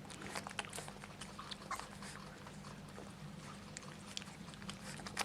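A litter of 26-day-old Kleine Münsterländer puppies moving about, making many small irregular clicks, taps and scuffles, with a steady low hum under it.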